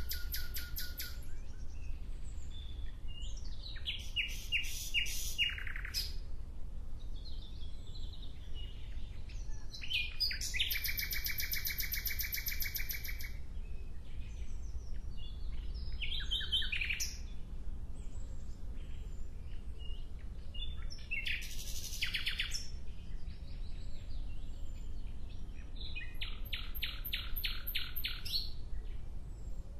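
A songbird singing short phrases of rapid, trilled notes, about six phrases with pauses of a few seconds between them. A steady low hum runs underneath.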